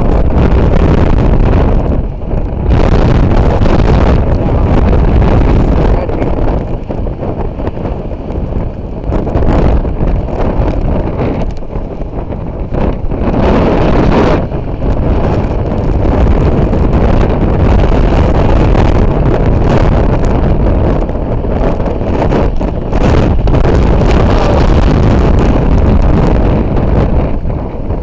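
Storm-force wind of about 40 to 45 mph blowing hard over the microphone: a loud, deep rumble of wind noise that swells and eases from gust to gust.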